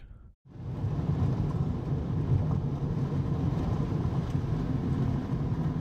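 Steady low rumble of wind buffeting the microphone outdoors, starting about half a second in after a brief silence.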